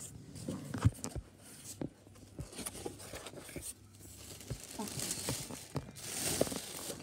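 Plastic bag crinkling and cardboard box flaps being handled as a mushroom growing kit is unpacked by hand, with a few short knocks, the sharpest about a second in.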